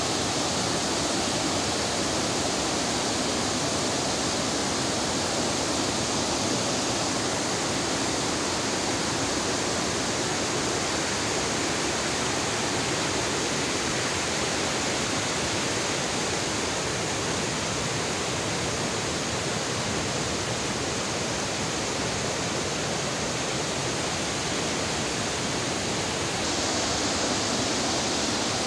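Fast-flowing mountain river rushing over boulders in white-water rapids: a steady, even rush of water, a little louder near the end.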